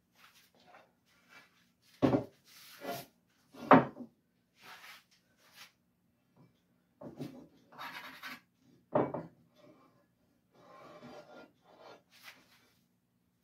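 Hand plane taking shavings off a cherry board in short rasping strokes, between sharp knocks of tools on the wooden workbench; the loudest knocks come about two, four and nine seconds in.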